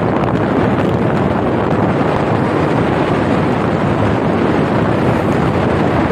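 Steady, loud wind buffeting the microphone of a moving vehicle, with a rumble of road and engine noise underneath.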